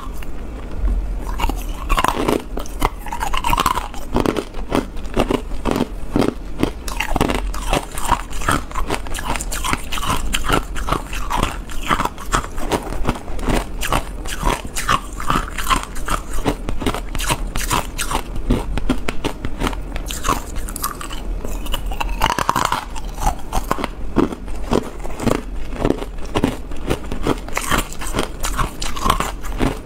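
Hard ice chunks being bitten and chewed: a dense run of sharp crunches and cracks, several a second, without a break.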